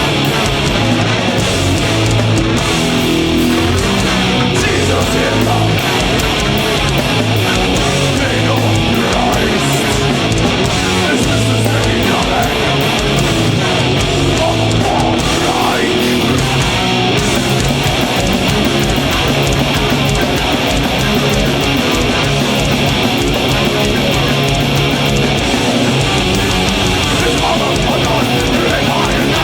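Live heavy metal band playing an instrumental passage: distorted electric guitars, bass and drums, loud and steady, with no vocals.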